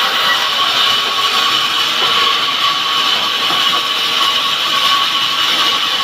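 Power wood saw running steadily at high speed: a loud, even machine noise with a steady high whine and no change in pitch.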